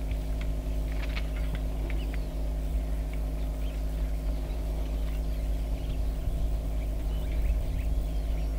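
A vehicle engine idling with a steady low hum, and short bird chirps over it, a cluster of them a second or two in and more near the end.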